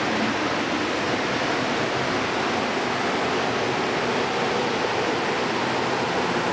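Montreal Metro rubber-tyred train rolling along the station platform: a steady rushing noise that holds an even level throughout.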